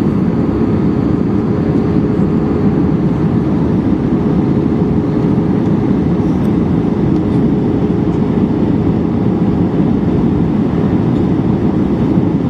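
Steady cabin noise inside an Airbus A320-232 airliner in flight: a loud, even rumble of airflow and its IAE V2500 turbofan engines, with a steady hum tone running through it.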